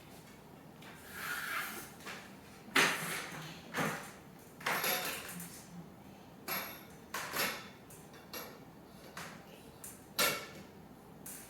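Curtain rod and its fittings clinking and clacking as a curtain is hung, about a dozen short, irregular knocks and scrapes.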